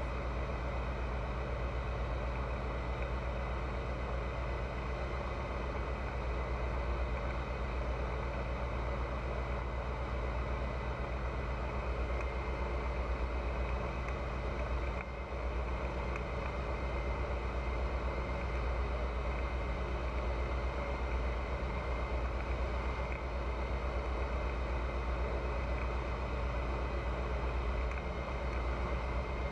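Pipistrel Virus light aircraft's Rotax 912 flat-four engine and propeller running at steady power, an even drone with no change in pitch.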